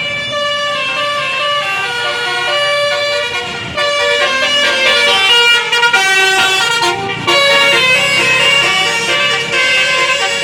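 Bus telolet horn: a set of musical air horns playing a quick tune of stepped notes, several sounding together, getting louder about four seconds in.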